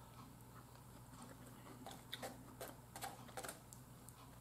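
Faint chewing of a mouthful of rice and corn, with a scatter of soft clicks and mouth smacks in the middle couple of seconds.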